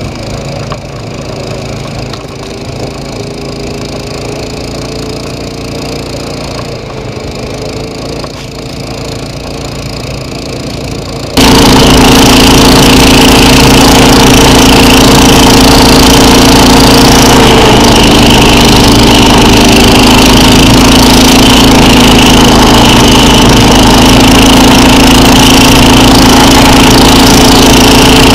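SnowDog tracked snow machine's small engine running steadily as it tows a sled, with scraping and crunching of the sled through snow. About eleven seconds in the engine suddenly becomes much louder and closer, with a steady hum and hiss.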